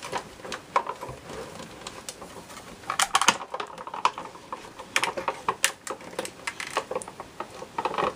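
Cuttlebug hand-cranked die-cutting machine being turned, its plates and cutting die squeezed through the rollers with a run of irregular clicks and cracks.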